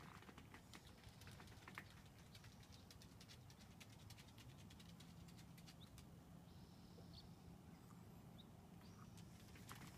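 Near silence: a faint low hum with scattered faint clicks.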